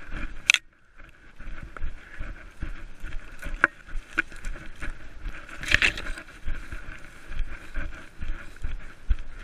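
Running footsteps and the jostling of a body-worn action camera as a runner pushes through forest undergrowth, with vegetation brushing and swishing past. There are repeated low thuds of footfalls and a few sharper swishes or crackles, the loudest about six seconds in.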